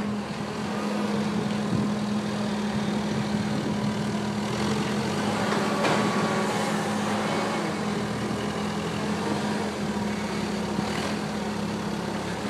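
A motor vehicle's engine running steadily at idle, with a constant hum under a broad noise.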